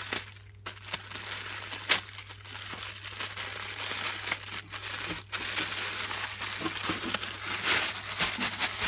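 Wrapping around a packaged hat crinkling and rustling as it is handled and pulled open by hand, with irregular crackles and sharp snaps that grow busier near the end. A steady low hum runs underneath.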